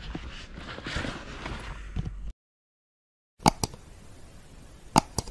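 Low rumble and hiss, then after a sudden cut to silence, four sharp clicks or knocks: two close together, then two more near the end.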